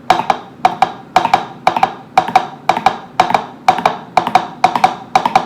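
Two small plastic cups knocked on a tabletop, imitating a horse's hoofbeats: quick clip-clop groups of two or three knocks, about two groups a second, in a steady galloping rhythm.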